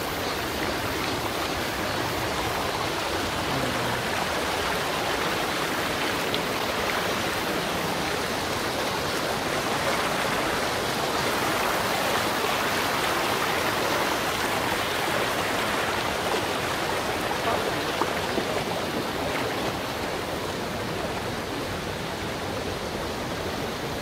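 Shallow mountain stream rushing steadily over rocks.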